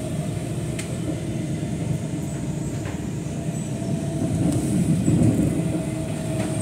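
Electric passenger train running along the track, heard from inside the carriage: a steady low rumble with a faint whine, growing a little louder about five seconds in.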